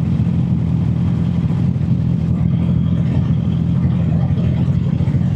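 Honda CB650R's inline-four engine running at a steady, unchanging engine speed, with no revving.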